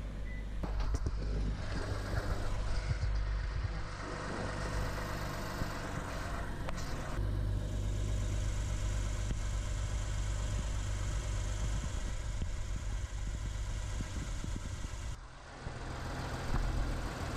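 2008 Lexus IS350's 2GR-FSE V6 idling steadily, run to warm the transmission fluid up to temperature for a fluid-level check.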